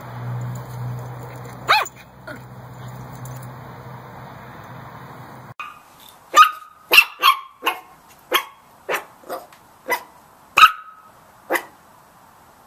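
A small puppy gives a single high yip about two seconds in, over a low steady hum. Then Chihuahua puppies bark a quick series of about ten short, high yaps, roughly two a second, through most of the second half.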